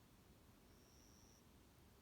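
A faint, thin, high-pitched whistled note on one steady pitch, lasting about two-thirds of a second and starting a little after the first half-second. It is one of a series of identical notes repeated about every second and a half: a small forest songbird's call.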